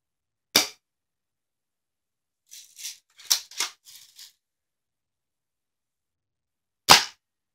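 Toy BB-pellet (airsoft) shotgun: a sharp snap about half a second in, a short run of plastic rattling around the middle, and a second sharp snap near the end.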